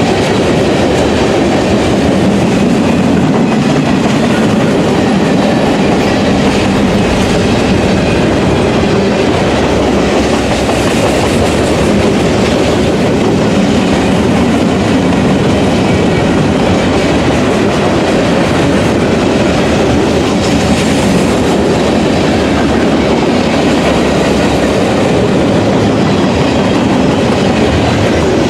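CSX freight train's cars rolling past at speed, a steady loud rumble with wheels clicking over the rail joints.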